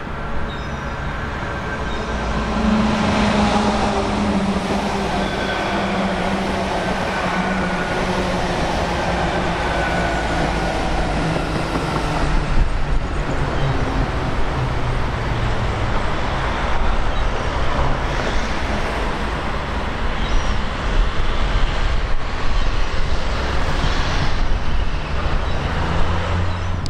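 GWR Hitachi Intercity Express Train passing on its underfloor diesel engines, with engine note and wheel noise on the rails; the pitch drifts slightly down as it goes by. About halfway through the sound cuts abruptly to another of these trains passing.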